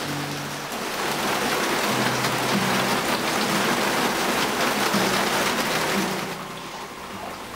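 Rain falling hard, a dense hiss that swells about a second in and drops away about six seconds in, over soft background music with low held notes.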